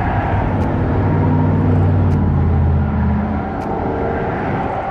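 An engine passing close by: a low, even hum that builds early on and fades after about three seconds, over a steady rushing noise.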